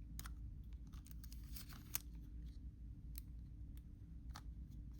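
Faint scattered clicks and rubs of a plastic toy fish figure being handled as its fins are turned, over a low steady hum.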